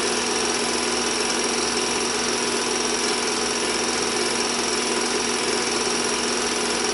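Home-movie film projector running with a steady, even mechanical whir and clatter.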